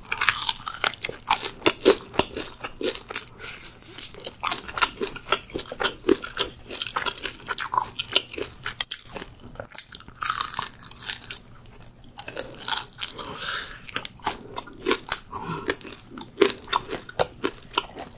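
Close-miked biting and chewing of crispy seasoned fried chicken, with many sharp crunches and crackles of the coating.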